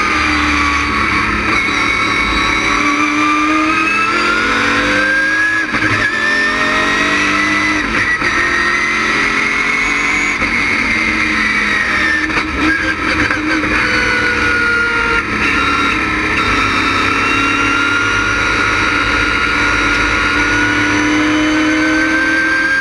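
LS6 V8 of a stock race car with an ASA camshaft, running hard on track. Its pitch falls, climbs for several seconds, falls again and climbs near the end as the car accelerates and slows through corners, with brief breaks in the sound around gear changes or lifts.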